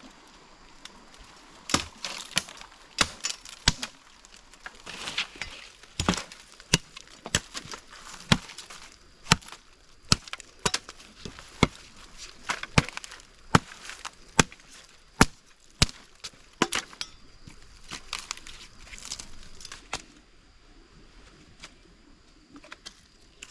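Repeated sharp chopping strikes at an irregular pace of about one or two a second, stopping about three-quarters of the way through, with only a few faint knocks after.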